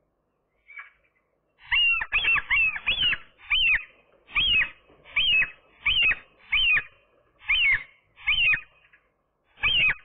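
A gull calling a long series of loud, high, rising-and-falling cries. They begin about two seconds in, come quickly at first and then settle to roughly one every three-quarters of a second.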